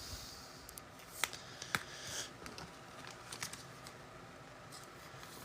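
Faint handling of trading cards and pack wrappers: soft rustling with a few light clicks, about a second in and again shortly after.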